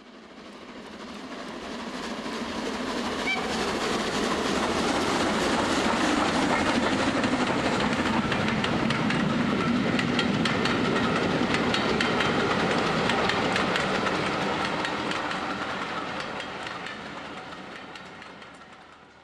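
A train going by on rails: wheels clicking and clattering over the rail joints, growing louder over the first few seconds, holding steady, then fading away near the end.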